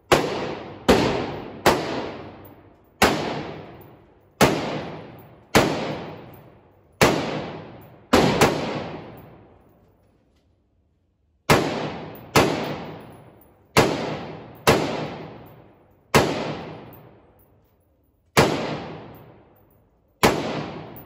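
A string of about eighteen gunshots on an indoor shooting range, roughly one a second with a short pause near the middle. Each shot echoes off the range's walls.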